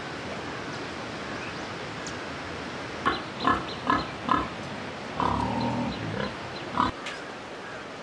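Domestic pigs grunting: a quick run of four short grunts about three seconds in, then a longer grunt, and one more short one near the end, over a steady background hiss.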